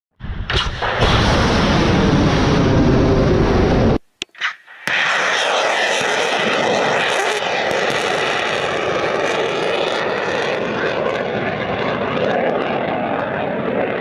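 Missile launched from a truck-mounted launcher: a loud blast with a deep rumble for about four seconds, then after a short break the steady rushing noise of its rocket motor as it flies off.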